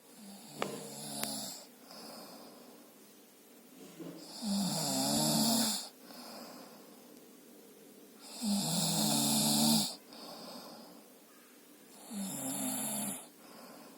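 A man snoring in his sleep: four long, rough snores, each about a second and a half, coming about every four seconds with quieter breathing between them.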